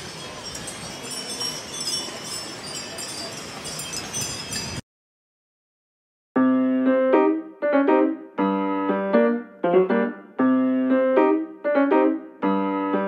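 Steady background noise that cuts off abruptly a little under five seconds in, then about a second and a half of dead silence, then solo piano background music playing rhythmic notes and chords.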